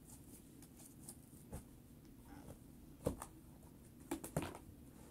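Quiet handling sounds: a few scattered soft clicks and taps, most of them about three to four and a half seconds in, as plastic slime tubs are picked up and set down.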